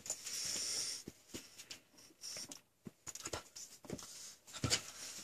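Young golden doodle puppy mouthing and gnawing at a person's fingers: soft, scattered clicks and rustles, with a short hiss in the first second.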